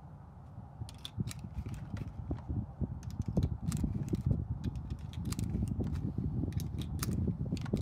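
Cartridges being pressed one at a time into a pistol magazine: a run of quick metallic clicks over a low rumble.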